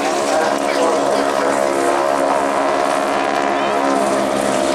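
Propeller-driven display aircraft, the wingwalking team's Boeing Stearman biplanes, droning steadily with their radial engines and propellers. The pitch of the drone slowly bends up and down as the aircraft fly past.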